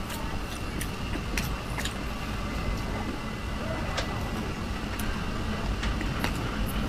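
Close-miked chewing of a cream-filled macaron: scattered soft, sharp mouth clicks over a steady low background rumble.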